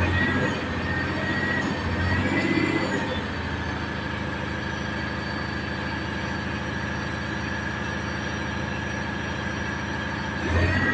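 Fuso 6M70 straight-six diesel truck engine idling steadily while building air pressure, a steady high whine running above it and the level swelling briefly a few times.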